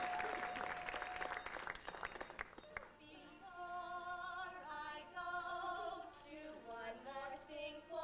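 Audience applause fading out over the first three seconds, with a long held note ending about a second and a half in. Then a few women singing together into a microphone.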